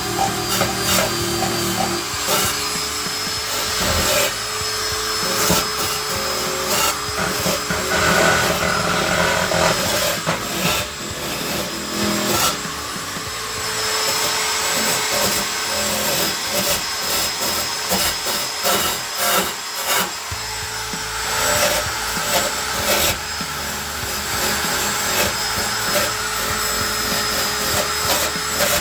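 Metalwork on a car's steel floor pan: the irregular crackle of tack welding mixed with power-tool noise, running with uneven loudness.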